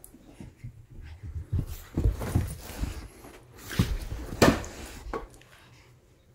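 Pet otter making short noises as it plays, in irregular bursts, the loudest about four and a half seconds in, dying down near the end.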